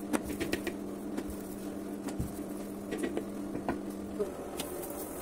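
Scattered light clicks and taps as paratha dough is handled in dry flour on a metal plate, over a steady low hum that stops about four seconds in.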